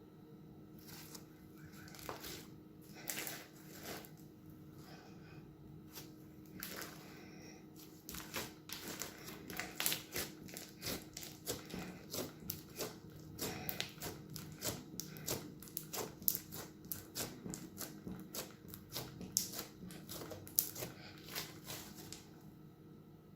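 Crunchy slime being worked and squished, giving sharp crackling pops and clicks. A few scattered pops come first, then a dense, irregular crackle from about a third of the way in until just before the end.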